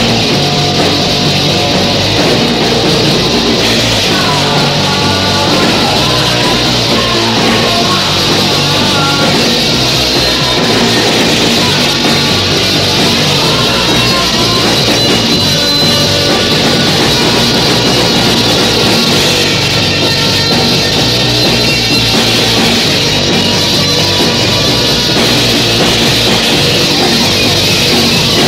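A 1983 Yugoslav anarcho-punk / noise-punk recording, with dense, loud rock guitar and drums playing without a break.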